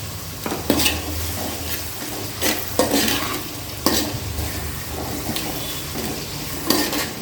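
Small onions frying in hot oil in a pot, sizzling steadily while they are stirred, with several sharp clinks and scrapes of the stirring spoon against the pot.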